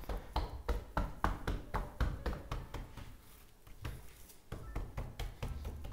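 Hands handling seasoned raw pork ribs on a work surface, making irregular soft taps and dull thuds, a couple every second.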